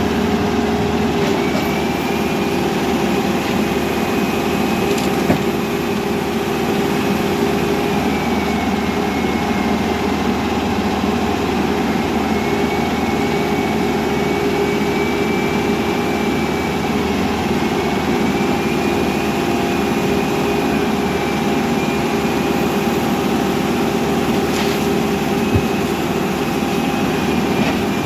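Caterpillar backhoe loader's diesel engine running at a steady speed, with a high whine that drifts slowly up and down and an occasional light knock.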